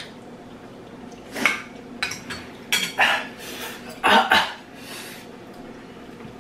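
Metal forks clinking and scraping against ceramic bowls while noodles are eaten, in several short bursts with the loudest about four seconds in.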